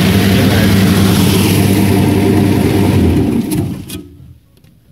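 Electric fodder cutter's 1.7 kW single-phase motor and four-knife cutting disc running at speed with a steady hum, then switched off about three seconds in and winding down to a stop within a second; a couple of light clicks follow.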